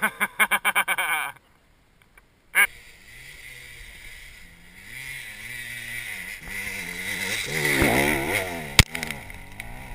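Dirt bike engines revving up and down under load on a steep hill climb, broken by a short gap about a second and a half in. Later a bike revs hard as it passes close by about eight seconds in, followed by a single sharp click.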